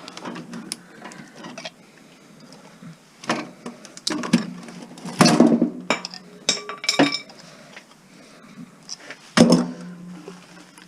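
Irregular metallic clinks and knocks of hand tools against the metal chassis and parts of a stereo cassette deck being taken apart, about half a dozen, the loudest a cluster a little past the middle and another near the end.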